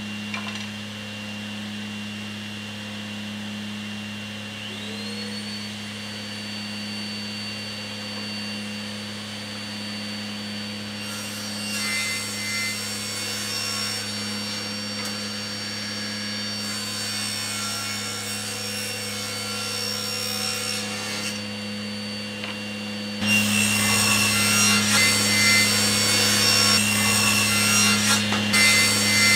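Laguna Fusion 3 cabinet saw running and ripping boards, with a steady motor hum under the cutting noise. A second motor, the shop vac on the blade guard's dust port, spins up with a rising whine about five seconds in. The cutting gets noticeably louder in the last several seconds.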